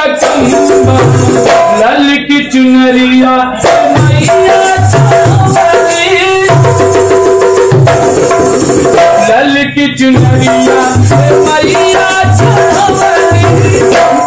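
Dholak drum played with the hands in a steady rhythm, with a man singing a Bhojpuri devotional song (devi geet) over sustained melodic accompaniment.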